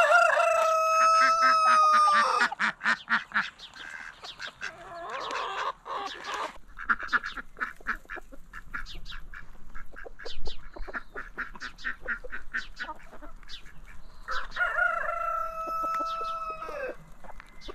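Rooster crowing twice, once at the start and again about fifteen seconds in; each crow is a long held call that drops away at the end. Between the crows, chickens cluck in short, scattered calls.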